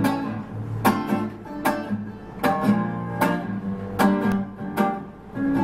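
Acoustic guitar strummed solo in a steady rhythm, one chord stroke roughly every three-quarters of a second, each ringing on until the next: the instrumental intro before the vocal comes in.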